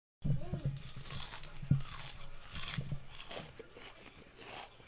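Potato chips crunching: a quick, irregular run of crisp crackles. It starts suddenly, is loudest over the first few seconds, then grows softer.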